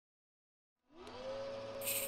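Logo intro sound effect: a tone that glides up in pitch about a second in and then holds steady over a low hum, with a bright hiss coming in near the end.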